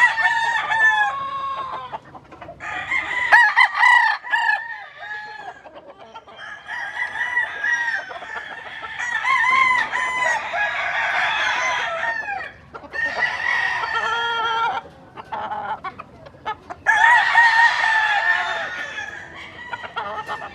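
Roosters crowing, about five long crows one after another over the stretch, some overlapping.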